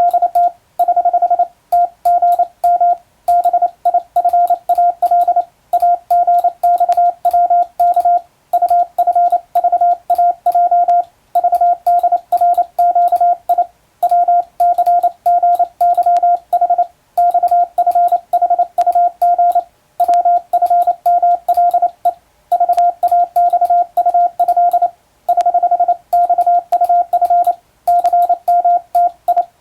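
Morse code keyed by hand on a telegraph key, heard as a steady mid-pitched sidetone beeping on and off in short dots and longer dashes. Brief pauses come every second or two between groups.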